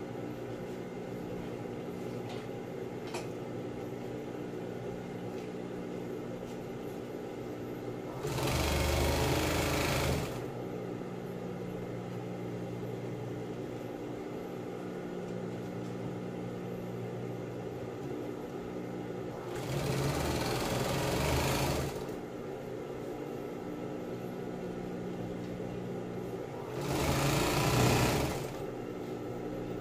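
Industrial sewing machine stitching binding along the edge of a vinyl tarpaulin in three short runs of about two seconds each, over a steady hum between runs.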